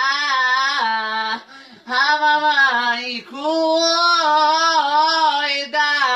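A woman singing loudly in long held notes with a slightly wavering pitch, breaking off briefly about a second and a half in and again about three seconds in.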